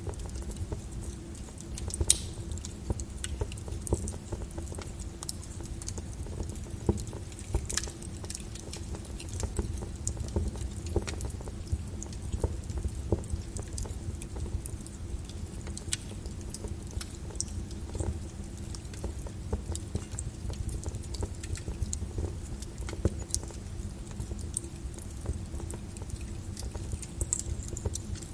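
Rain pattering on a window with a wood fire crackling, irregular sharp pops from the fire over a steady low rumble; one louder pop about two seconds in.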